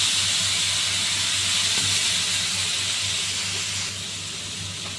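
Vinegar poured into a hot pan of sautéed pork intestines, hissing and steaming loudly, then easing off about four seconds in.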